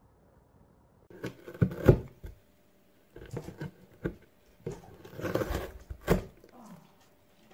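A cat biting and tearing at the rim of a cardboard box: irregular bursts of crunching, ripping cardboard, starting about a second in.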